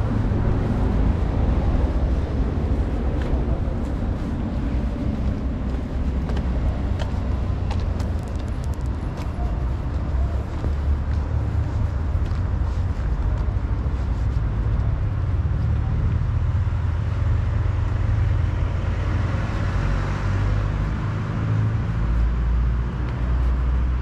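Steady low rumble of street background noise, heaviest in the deep bass, with no single event standing out.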